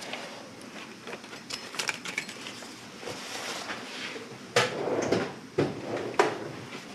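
Scattered clinks and knocks of metal tools and parts being handled, with three louder knocks in the second half.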